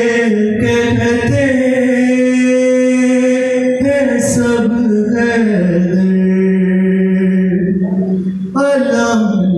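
A young man's solo voice singing a Muharram devotional recitation, unaccompanied, into a microphone. He holds long notes that step between pitches, with brief breaks for breath and words about four seconds in and near the end.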